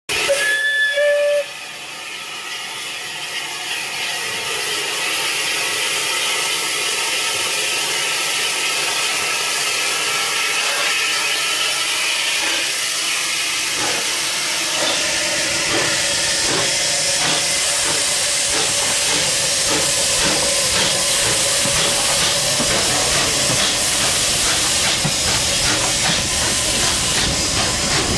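A steam whistle sounds briefly, then a steady hiss of steam builds over several seconds and holds. In the second half, Southern Railway West Country class locomotive No.34092 and its coaches pass close by, adding a run of short knocks from wheels and rails.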